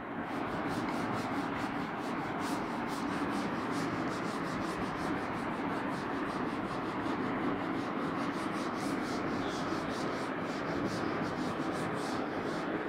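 A duster wiping chalk off a chalkboard in quick back-and-forth strokes, a steady scratchy rubbing.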